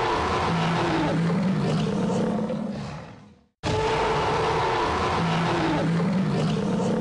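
A dinosaur roar sound effect standing for a Spinosaurus: a long, low, rasping roar that fades out about three and a half seconds in. The identical roar then starts again at once.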